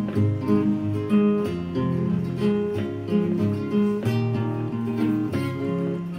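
Background music: acoustic guitar plucked and strummed in a steady rhythm.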